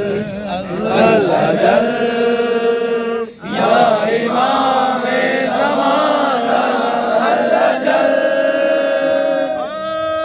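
Men's voices chanting a drawn-out devotional melody, a lead voice with others joining in. There is a short break about three and a half seconds in, and a long held note near the end.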